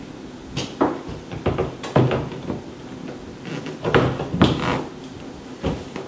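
A cooktop being set down into a countertop cutout and shifted for fit: a series of short clunks and knocks, about half a dozen, the sharpest about two and four and a half seconds in.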